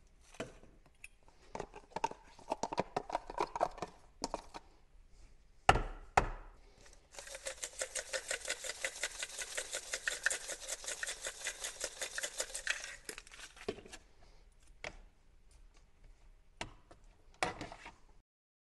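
A seasoning shaker of lemon pepper seasoning shaken over a pot of broccoli, a quick, even rattle lasting about six seconds. Before it come light spoon clicks and two sharp knocks about six seconds in, and a few more clicks of a spoon in the pot follow.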